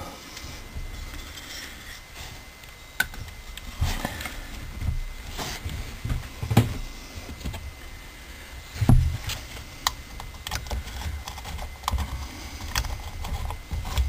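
Irregular light clicks and knocks of a small-engine carburetor and its metal float bowl being handled and set down on a workbench during reassembly, the loudest knock about nine seconds in.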